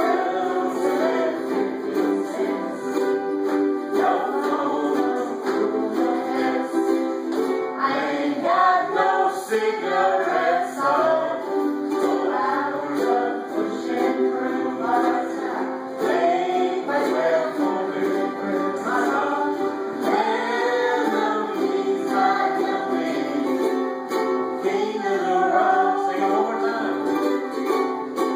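Ukuleles strummed through a country song, with voices singing along.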